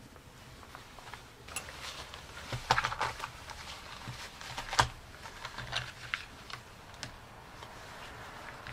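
Leatherworking hand sounds on a workbench: irregular light clicks, taps and rustles of leather and small metal hand tools being handled, with one sharper knock a little under five seconds in.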